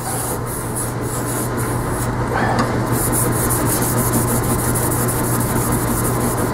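Steel plane blade being honed on a wet water stone: rapid back-and-forth strokes make a steady, gritty scraping that gets stronger about halfway through.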